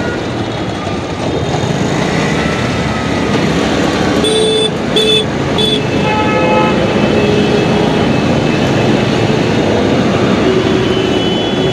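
Road traffic moving off from a signal, a dense steady roar of engines and tyres. Three short horn toots come about four to six seconds in, followed by another horn.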